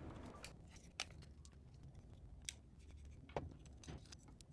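Faint, scattered clicks and light taps of small parts being handled: memory-module heatsink plates and their packaging picked up and set down.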